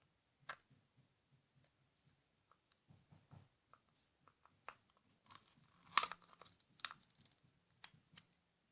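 Plastic toy target cans being handled and fitted together: scattered light clicks and knocks of plastic parts, the loudest about six seconds in, over faint rustling.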